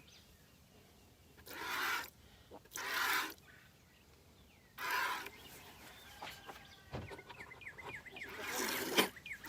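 Goat being milked by hand: four short hissing bursts of milk squirting into the pail, spaced unevenly about a second or more apart, with faint bird chirps between them.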